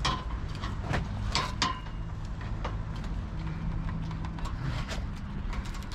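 Scattered sharp knocks and clanks of scrap being handled, over a steady low rumble.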